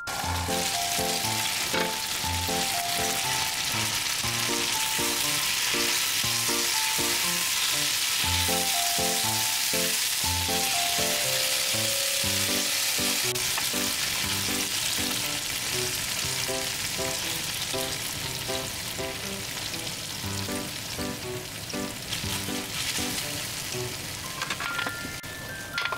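Food frying in a frying pan: mini hamburger patties with sliced bell peppers and shimeji mushrooms, sizzling steadily and easing a little near the end. Light background music with a steady run of notes plays underneath.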